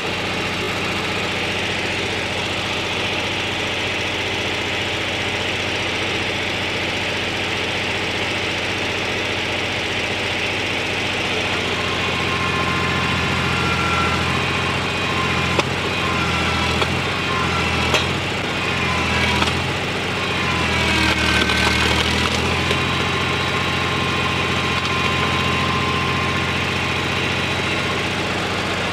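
Small petrol engine of a hydraulic log splitter running steadily. From about halfway through it labours under load, and squealing tones and a few sharp cracks come while a log is being split.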